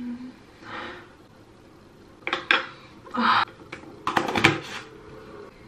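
Plastic skincare jars and bottles being handled: clusters of clicks and knocks about two seconds in and again around three and four seconds, as lids are worked and containers set down.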